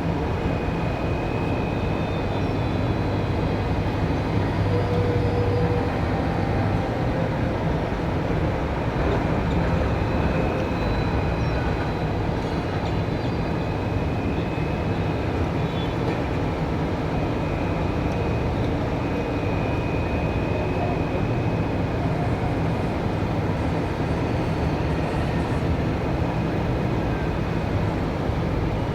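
Steady low drone of heavy machinery during container loading with a port container crane, with faint thin whines coming and going above it.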